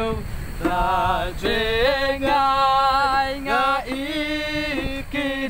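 A group of people singing a Christian hymn chorus with an 'alleluia' refrain, in long held notes with short glides between them. A low rumble runs underneath.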